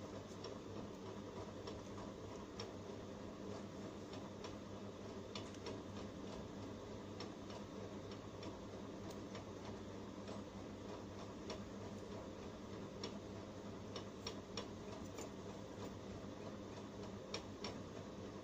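Scattered, irregular small clicks and taps from a phone's plastic housing and circuit board being handled, over a steady low electrical hum.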